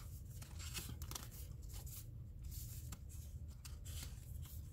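Paper tags and die-cut paper embellishments handled and shuffled in the hands: light rustling and soft paper clicks, over a low steady hum.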